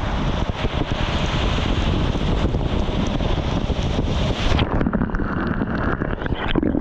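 Wind buffeting an action camera's microphone over rushing surf: a dense, steady roar. About two-thirds of the way through the hiss suddenly loses its top and turns duller.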